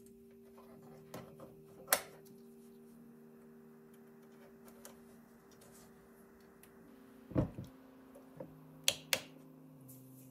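A few sharp, separate clicks and taps as test leads are handled and touched to the pins of a small relay. The loudest is about two seconds in, with a cluster of them near the end.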